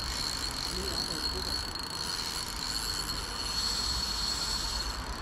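Steady outdoor ambience: a constant high-pitched insect chorus over a low, even rumble, with no distinct events.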